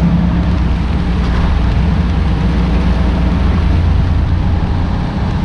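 Tractor-trailer cab noise: the diesel engine's steady low drone under an even rush of tyre and road noise.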